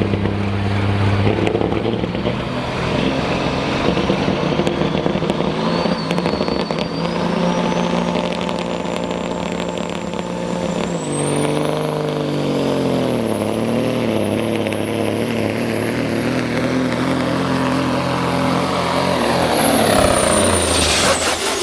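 Pro stock semi truck's turbocharged diesel engine working hard under full load while pulling a sled. A high turbo whistle climbs in pitch over several seconds, holds high, then falls away near the end. The engine note dips partway through as the load comes on.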